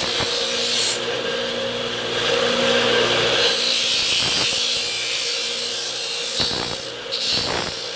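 A power tool spinning a wire wheel against the freshly cut edge of a laptop screen panel, deburring it: a steady motor hum under a loud scratching hiss, easing off for a moment about a second in and again near the end.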